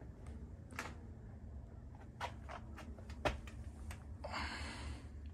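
Faint background: a steady low rumble with a few scattered soft clicks, and a brief hiss about four seconds in.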